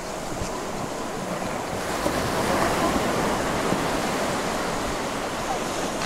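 Ocean surf breaking and washing over shoreline rocks, a steady rush that swells about two seconds in and then eases.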